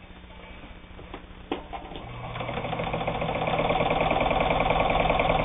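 Necchi Supernova Ultra sewing machine starting to sew a straight stitch through shirting fabric: after a click about a second and a half in, it starts running about two seconds in and speeds up to a steady, fast, rhythmic stitching by about three and a half seconds.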